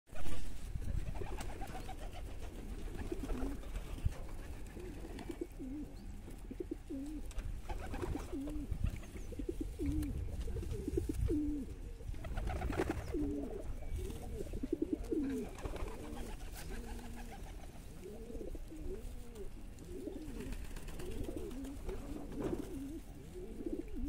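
Racing pigeons cooing over and over, a string of low, rolling coos, with a few light rustles and knocks from the bird being handled and a sharp bump right at the start.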